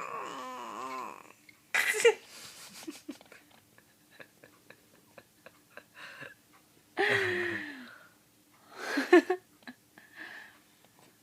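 A baby's voice in short breathy bursts: squeals and babbling, a sharp breathy burst about two seconds in, a falling cry-like sound about seven seconds in and another burst about nine seconds in, with small clicks in between.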